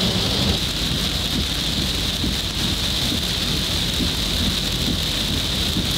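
Heavy rain pouring steadily on a van while it drives, heard inside the cabin: an even hiss over a low rumble.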